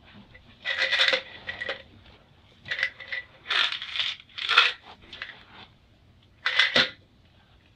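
Pills rattling in a small plastic pill bottle as it is handled and shaken, in five or six short bursts.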